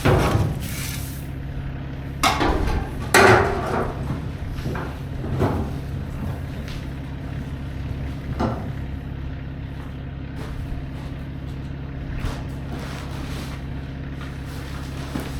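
Tractor engine idling steadily, with a few scraping, rattling scoops of cracked corn being shovelled into the loader bucket in the first half.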